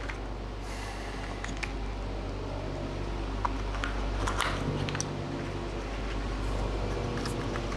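Steady low mechanical hum in a small treatment room, with faint scattered clicks and light rubbing as cream is worked into the skin by hand.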